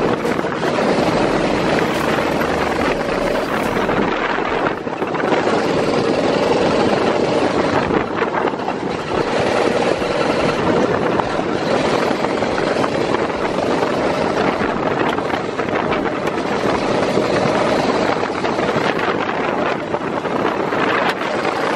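Go-kart engine running steadily at speed, a continuous buzzing drone whose note wavers a little, with wind buffeting the microphone.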